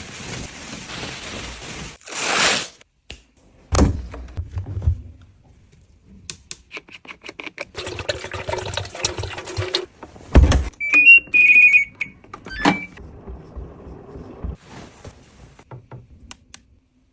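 Household handling noises of containers being filled and put away: rustling and scraping, knocks and thuds of items set down, with one louder thud about ten seconds in. A brief high-pitched tone sounds just after it.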